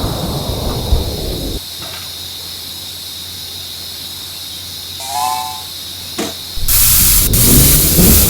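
A 5-inch gauge miniature steam locomotive. A low rumble stops about a second and a half in, leaving a faint steady hiss and a brief pitched toot. About two-thirds of the way through, a loud hiss of escaping steam starts and keeps going.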